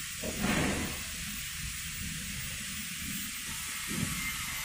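Steady hiss of background room noise, with a brief louder burst of noise about half a second in.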